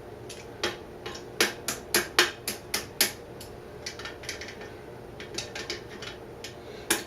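Hand tools tapping and clinking on metal motorcycle parts: a quick run of about eight sharp knocks, then a few lighter clicks and one last knock near the end.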